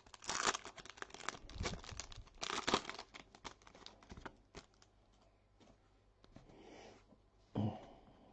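The plastic-foil wrapper of a trading-card pack being torn open and crinkled, in a couple of crackling bursts over the first few seconds. Then quieter handling, with a short dull thump near the end.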